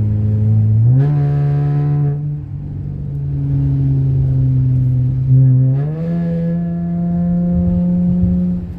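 Dodge Challenger's V6 engine, breathing through a Spectre cold air intake, pulling while under way; its pitch rises about a second in and again near six seconds, holding steady in between.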